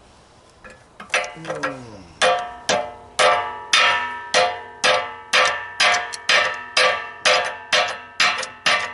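Steady series of hammer blows on the metal parts of a DeWalt air compressor being broken apart for scrap, about two ringing strikes a second, starting about a second in.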